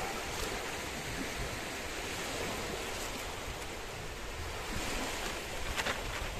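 Steady sea surf and wind noise at the shoreline, with a few light crackles near the end as a plastic bag is picked up.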